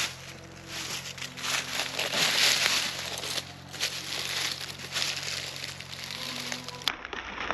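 Rustling and crunching in dry leaves and brush, over a faint steady low hum.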